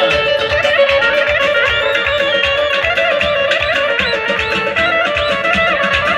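Loud amplified wedding music: a fast, ornamented plucked-string melody full of quick trills and pitch bends, over a held drone and a steady drum beat.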